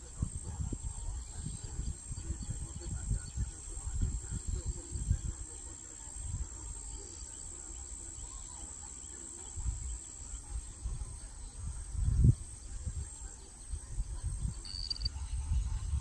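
Wind buffeting the microphone in irregular low gusts, with a steady high-pitched insect trill that stops about ten seconds in.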